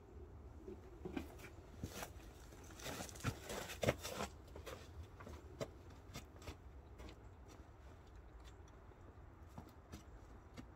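Footsteps crunching in snow, thickest about two to four seconds in, then thinning to scattered faint crunches as the walker moves off.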